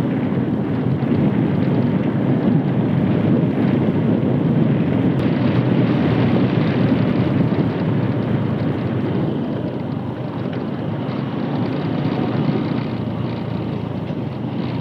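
Moving motorcycle: a steady rush of wind on the microphone mixed with engine and road noise while riding.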